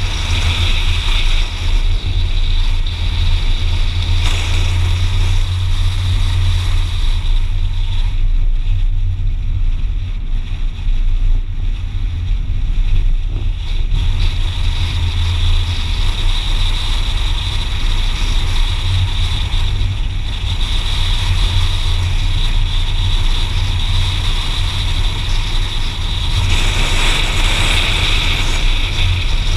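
Car engine and tyre noise heard from inside the cabin: a steady low rumble with a hiss over it that grows brighter near the end.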